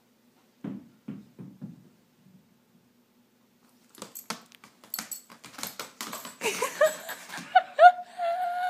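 A small dog's booted feet scrabbling on a hardwood floor: a quick run of clicks, taps and scuffs. Over the last couple of seconds a loud, high, wavering whine rises and falls, then holds steady.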